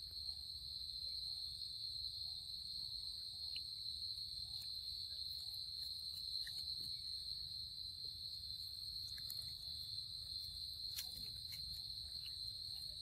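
Steady, high-pitched chorus of insects chirring without a break, with a few faint clicks and a low rumble underneath.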